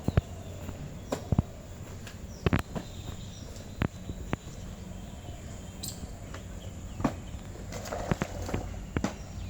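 Footsteps and sharp, irregular knocks of equipment being handled, over a steady low hum.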